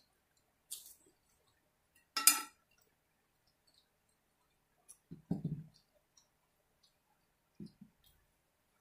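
Short clicks and clinks of a glass baking dish being handled and slid off a wooden cutting board, with one loud clink a little over two seconds in. A couple of softer, low knocks follow later.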